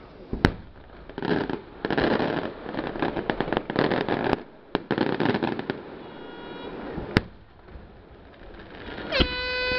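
Aerial fireworks shells bursting: a sharp bang about half a second in, then several seconds of dense crackling from crackling stars, with further single bangs. Near the end a horn starts sounding one steady note.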